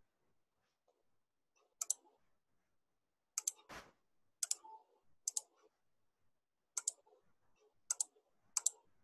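Computer mouse clicking, about seven sharp single clicks at irregular intervals, with one short scuffing noise a little before the middle.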